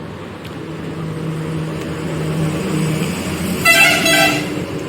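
A motor vehicle running past, then about three and a half seconds in a vehicle horn gives two short toots.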